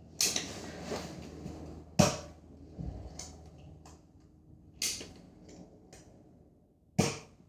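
Small Nerf blaster being fired: four sharp snaps about two to three seconds apart, with softer clicks and knocks between them.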